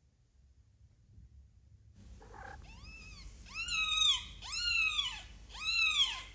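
Domestic cat meowing four times from about halfway in, each meow rising then falling in pitch, the last three loud. A low rumble runs underneath from about two seconds in.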